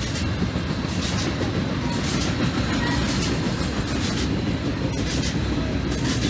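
Double-stack intermodal freight train rolling past: a steady low rumble of steel wheels on the rails, with scattered sharp clicks.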